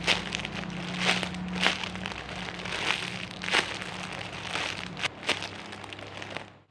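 Rustling and crinkling from a large foam squishy toy, a jumbo panda bun, being handled and squeezed: irregular short strokes over a steady low hum.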